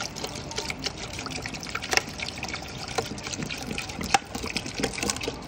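Water poured from a plastic bottle into the water tank of a portable air cooler, trickling and splashing, with a few sharper splashes along the way.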